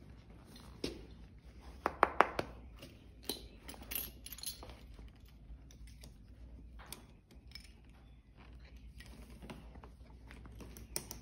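Metal buckles and rings on horse tack clinking and rattling as a western saddle and breast collar are handled and fastened, with a cluster of sharp clinks about two seconds in and scattered lighter ones after.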